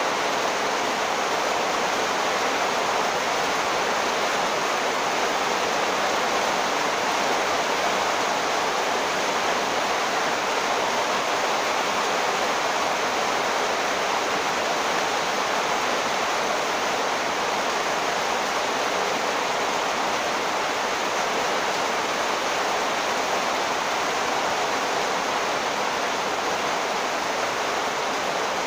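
Torrential rain pouring steadily onto standing floodwater, a constant even hiss that never lets up.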